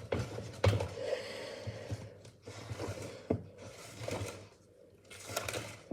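Cake batter being stirred by hand in a mixing bowl, the utensil scraping and knocking irregularly against the bowl.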